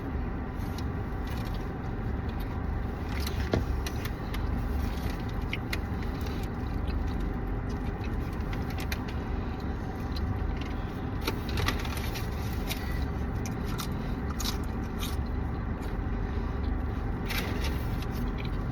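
Steady low hum and rumble inside a car cabin, with small clicks and rustles of food packaging and handling scattered through it.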